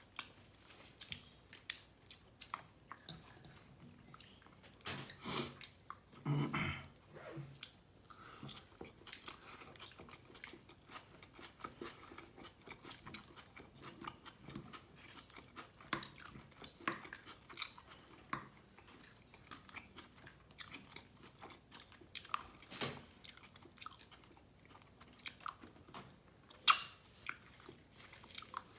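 Close-miked chewing and eating of beef tehari: a steady run of soft, wet mouth clicks and smacks. There is a louder stretch about five to seven seconds in and a sharp click near the end.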